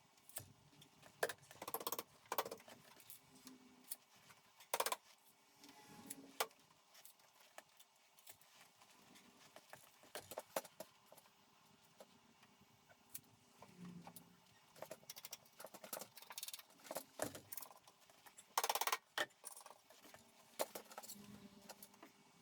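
Irregular light metallic clinks, clicks and knocks of hand work on a metal ceiling frame, parts and tools being handled and fitted, over a faint steady hum.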